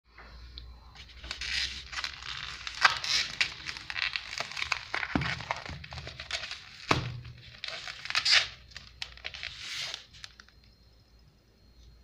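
Plastic wrap crinkling and tearing as a foam food tray is handled, with a couple of dull knocks about five and seven seconds in; the rustling stops near the end.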